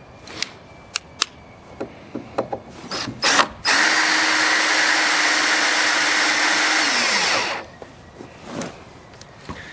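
Clicks and knocks as a power drill is handled. The drill then runs steadily for about four seconds, drilling into a stuck brass screw with a combined drill bit and screw extractor, and winds down in pitch as the trigger is let go.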